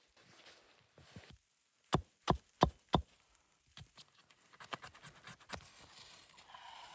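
Four sharp knocks in quick succession, about a third of a second apart, followed by lighter clicks and rustling.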